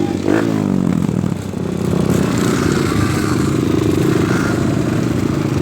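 Trail motorcycle engine revving up and down for about a second, then running steadily under throttle.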